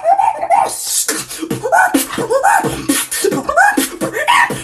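Vocal beatboxing: quick, repeated pitched vocal bursts that rise and fall, several a second, with a hissing sound coming in about a second in.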